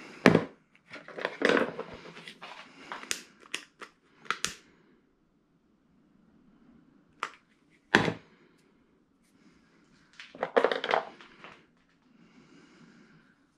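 Handling noises of tools and small parts: a quick run of sharp clicks and knocks with some rustling, then two separate knocks and a short rustle near the end.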